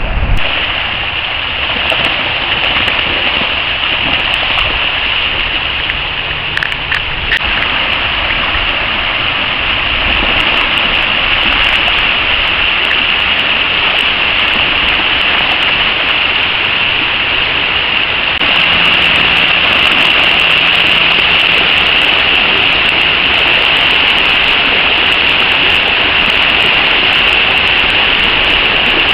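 Shallow river running fast over rocks: a steady, loud rushing of water that gets a little louder about two-thirds of the way through.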